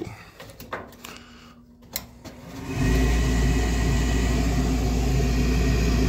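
A sharp click about two seconds in, then the Rheem 90% gas furnace's draft inducer motor starts and runs steadily with a strong low hum. It is pulling about 0.8 inches of water column, strong enough for the pressure switches, so the inducer is healthy.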